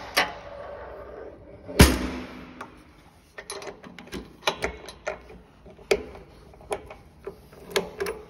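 Stainless steel parts of a ribbon blender being handled: a loud metal clang about two seconds in that rings on briefly, then a run of irregular clicks and knocks.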